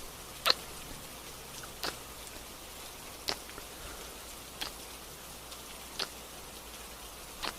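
Gentle rain falling steadily, with a short wet smack about every second and a half, six in all.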